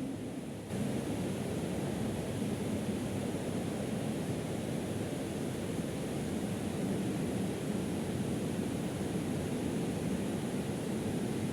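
Steady, even background noise with no voice, heaviest in the low-middle range, a little quieter for the first moment before settling at a constant level.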